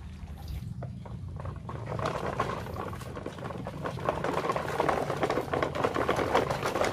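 Plastic wheels of a toy dump truck rolling over dry dirt and grit, a dense gritty crackle that grows louder from about two seconds in.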